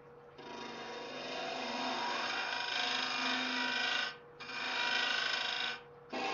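Hunter carbide cutter on a boring bar hollowing the inside of a spinning dry ash blank on a lathe: a steady hiss of cutting in two passes of a few seconds and about a second and a half, each broken off by a short pause, with the next pass starting near the end. A faint steady hum runs underneath.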